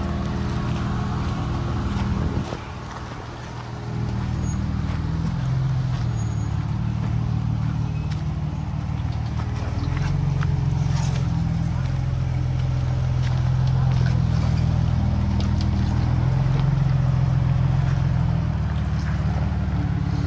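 Jeep Wrangler engine running at low revs while crawling over rocks, the revs rising and falling in steps. The sound drops briefly about two seconds in.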